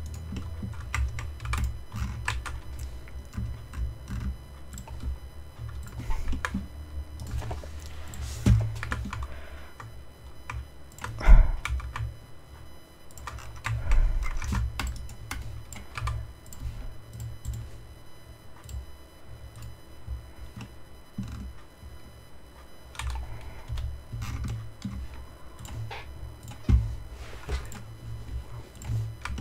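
Irregular clicking and tapping of a computer keyboard and mouse, the keys and buttons pressed one at a time at an uneven pace, over a low steady rumble.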